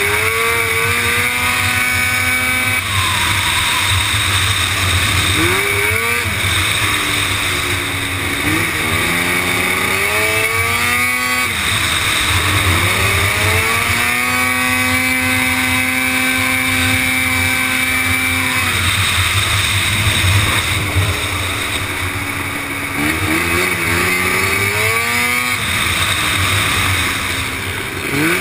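Supermoto racing quad's engine at race pace, heard from on board: the revs repeatedly climb and drop back, holding a steady high note for several seconds midway, with a constant rush of wind over the microphone.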